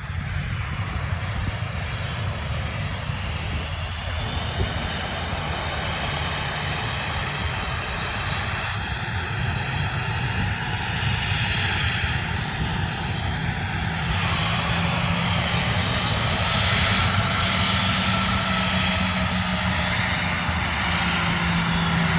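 Airplane engines running, a continuous rumble that grows slowly louder, with a faint whine in the middle.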